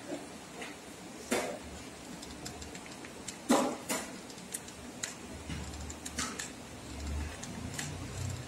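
A few sharp clicks and taps of craft tools being handled on a plastic table mat, a hot glue gun among them, the loudest about three and a half seconds in. A low hum comes in about halfway through.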